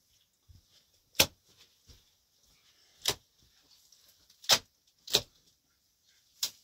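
Five sharp knocks, each brief and cut off quickly, at uneven intervals about one to two seconds apart. The first and fourth are the loudest.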